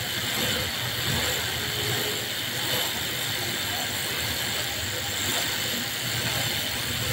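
Steady garment-factory machine noise: a low hum with an even high hiss over it.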